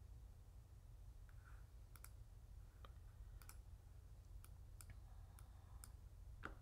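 Faint, scattered clicks from someone working a computer, about a dozen spread irregularly over several seconds, over a low steady hum in near silence.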